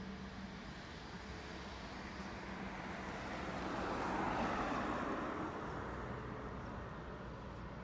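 Airbus A321neo's CFM LEAP-1A turbofan engines running at low taxi thrust as the airliner rolls slowly before takeoff: a steady hum. A broad swell of noise builds and fades over about three seconds in the middle.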